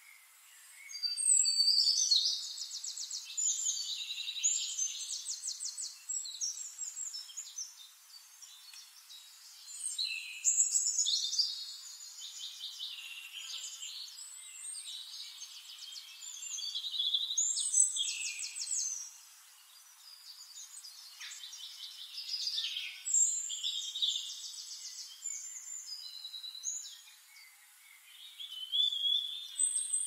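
A songbird singing high-pitched phrases of fast trills and chirps. There are about five phrases, each a few seconds long, with short pauses between them.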